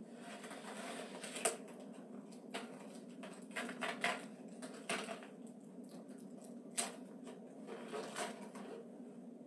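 Takeout food packaging for a gimbap meal being opened and handled at a table: scattered sharp clicks and crackles, the loudest about a second and a half in, over a low steady hum.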